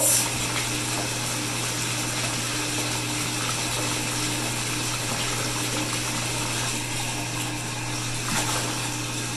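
Bath tap running steadily into a filling tub, the stream splashing onto the water, with a constant low hum underneath.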